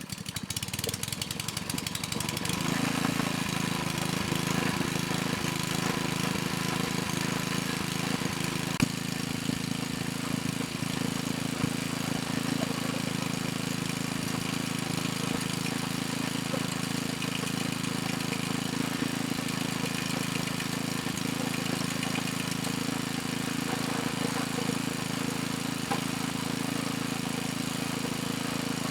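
Log splitter's small gas engine running steadily while driving the hydraulic ram against a large log. It grows louder about two and a half seconds in as it takes the load. The splitter is slow and weak, which the owner puts down to a worn drive belt.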